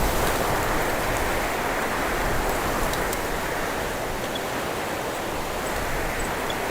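Wind rushing steadily through cypress branches, with a low rumble of wind buffeting the microphone.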